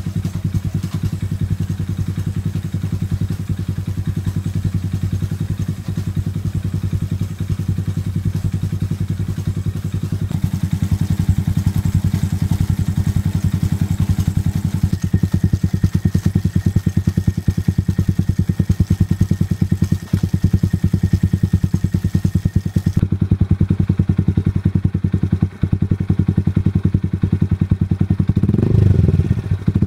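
Honda MSX125's single-cylinder four-stroke engine idling through a LeoVince slip-on exhaust, a steady fast pulsing that gets a little louder about ten seconds in. Near the end the revs rise briefly.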